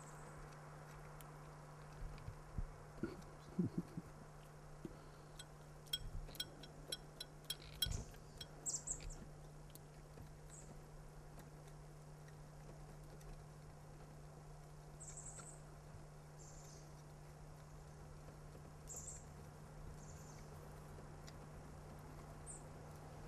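Quiet with a steady low hum, a run of soft clicks and knocks a few seconds in, and a handful of brief high chirps, like small birds, scattered through the rest.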